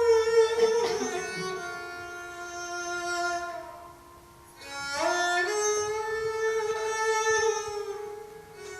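Instrumental music in Indian classical style: a bowed string instrument playing long held notes with slides between them, in two phrases with a brief lull near the middle.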